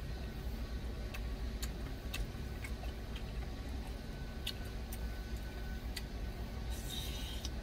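Sharp clicks and light taps of a plastic spoon against a glass food container while eating, scattered every second or so, over a steady low hum that fits the truck's engine idling.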